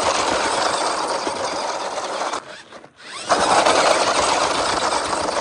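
Small electric motor and drivetrain of an RC car running hard, in two runs of about two and a half seconds with a short break between.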